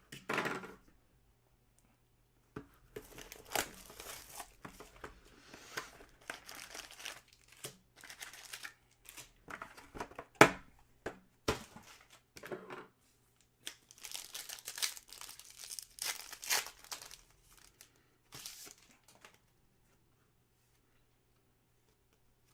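Plastic wrapping on a hobby box of football trading cards and its packs being torn open and crinkled, in irregular bursts with a sharp snap about halfway through.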